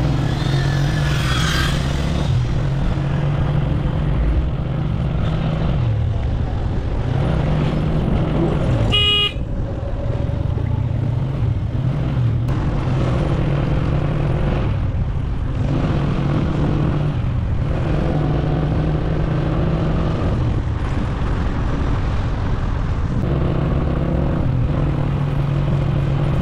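Motorcycle engine running at low road speed, its pitch rising and falling with the throttle, with road and wind noise. A vehicle horn toots once, briefly, about nine seconds in.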